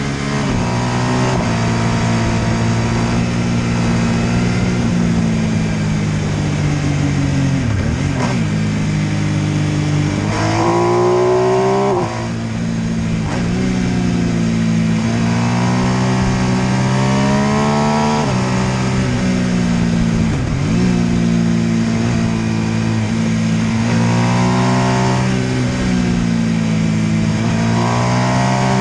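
MV Agusta F3 800's three-cylinder engine under way, its pitch climbing and falling several times as it accelerates and eases off, with a steep climb about ten seconds in that ends with a brief drop in level about two seconds later.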